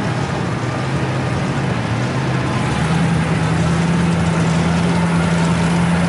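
Duramax diesel engine of a lifted Chevy mud truck on tractor tyres, running at low revs as the truck creeps through mud. Its steady drone steps up a little in pitch about three seconds in and then holds.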